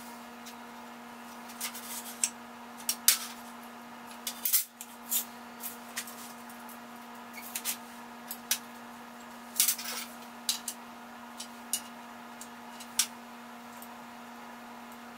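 Small metal tools and parts being picked up and set down on a steel welding table, an irregular series of sharp clinks and taps that thins out near the end, over a steady low hum.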